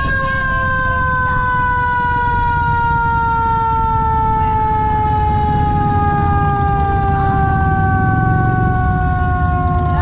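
A siren winding down, its single tone falling slowly and steadily in pitch, over a low steady rumble.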